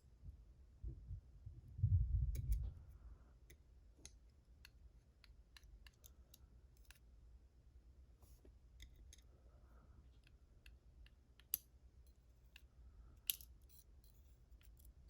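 Light metallic clicks and taps of small lock pins and tweezers being handled while a pin-tumbler lock is taken apart and its pins removed. There is a low handling rumble about one to two and a half seconds in and two sharper clicks near the end.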